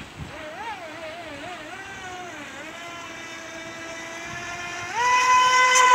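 FT011 RC racing boat's 2400 kV brushless motor whining. The throttle is eased off at the start and the pitch wavers lower and quieter. About five seconds in it jumps back up to a loud, steady high whine at full throttle.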